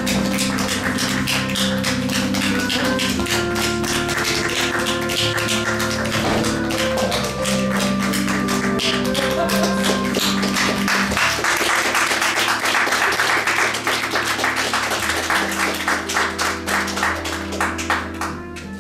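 Music with held notes under a dense, fast clatter of hand clapping; both fade away near the end.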